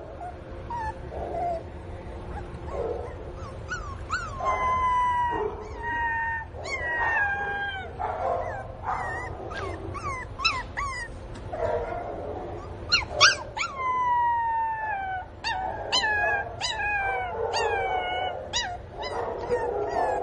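Pinscher puppy crying: repeated high-pitched whines that start sharply and slide down in pitch, coming in clusters from about four seconds in. These are the distress cries of a puppy missing its mother.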